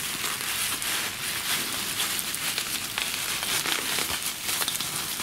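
Plastic bubble wrap crinkling and rustling as it is pulled and unfolded by hand, with many small sharp clicks throughout.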